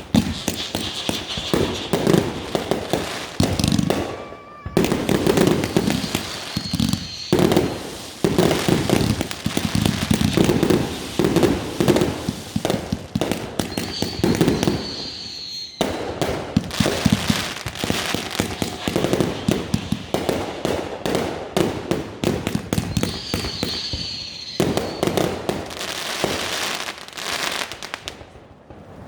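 Consumer fireworks going off in rapid succession: dense crackling and banging, nearly continuous, broken by a few brief pauses, with a few short high whistles.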